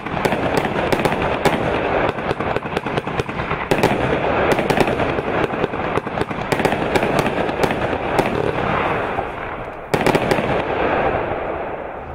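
Bangtastic 144-shot compound firework cake firing: a rapid, continuous run of launches and bursts with dense crackling pops. A fresh loud burst comes about ten seconds in, then the crackle fades.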